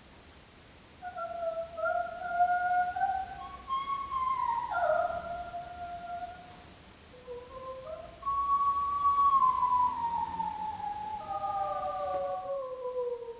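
Slow, dreamy music of long held high tones that slide and bend into one another, starting about a second in. It eases off in the middle and ends on a long falling glide.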